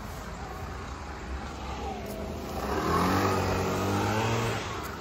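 A motor vehicle's engine accelerating, growing louder and rising in pitch about halfway through, then dropping away just before the end.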